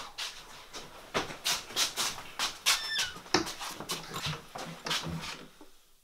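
Hurried footsteps and heavy panting breaths from people rushing through a room, with a short high squeak about three seconds in, fading away near the end.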